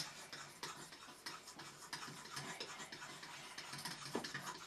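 A metal fork beating pancake batter in a glass bowl: quick, irregular clicks of the fork against the glass, with one sharper click at the very start.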